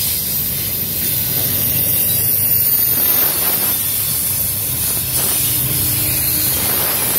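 Double-stack intermodal train's well cars rolling past close by: a steady, loud rumble and hiss of steel wheels on the rails.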